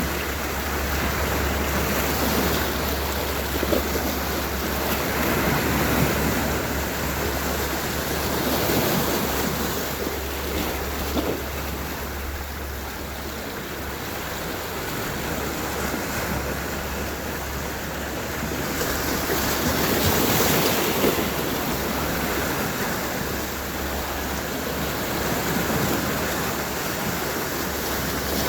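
Sea waves washing onto the shore, the surf swelling louder a few times, with wind rumbling on the microphone.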